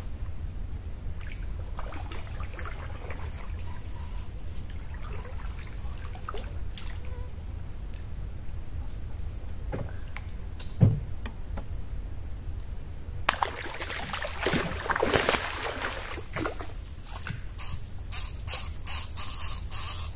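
Water splashing and sloshing at the surface as a hooked fish thrashes beside a small boat, a noisy stretch of a few seconds in the second half. A single sharp knock on the boat comes a couple of seconds before it, over a low steady rumble.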